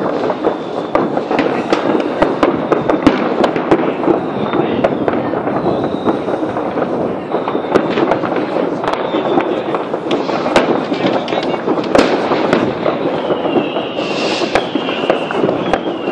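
New Year's Eve fireworks and firecrackers going off all over the city: a dense, unbroken crackle packed with sharp bangs, a few louder reports standing out. Thin high whistles drift in and out above the crackle, most plainly near the end.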